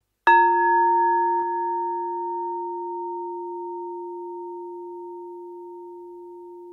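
A single bell-like tone struck about a quarter second in, then ringing on and slowly fading away, with a faint click about a second and a half in.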